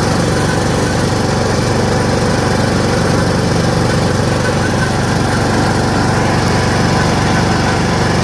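Riding lawn mower's engine running steadily at speed while the mower is driven along a road.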